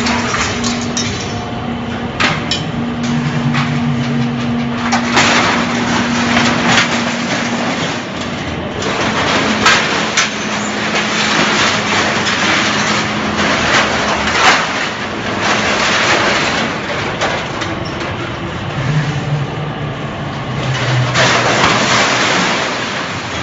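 Y81F-4000 hydraulic scrap-metal baler at work: a steady hum from the machine over the clatter and crunch of metal scraps being pressed, with many sharp metallic clicks. The hum drops slightly in pitch about eight seconds in.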